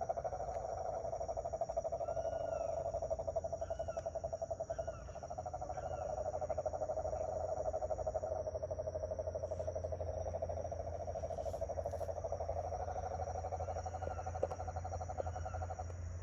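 Night chorus with a low, continuous trilling hum that pulses rapidly and dips briefly about five seconds in, typical of calling toads or frogs. Over it are steady high insect drones and scattered short chirping calls.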